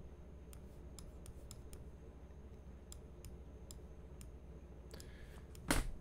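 Faint, irregular computer mouse and keyboard clicks, about a dozen spread through the pause, over a low steady hum.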